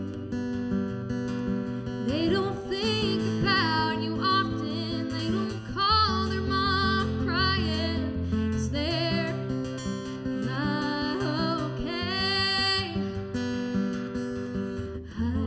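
Acoustic guitar strummed in a steady chord pattern, with a sung melody held with vibrato over it from about two seconds in until near the end.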